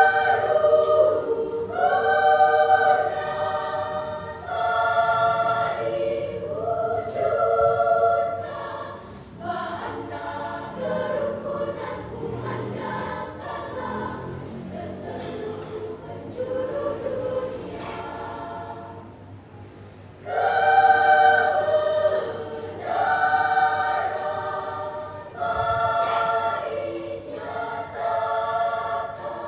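Children's choir singing in parts: loud, held chords in short phrases, a softer passage in the middle, and the full choir coming back in loudly about two-thirds of the way through.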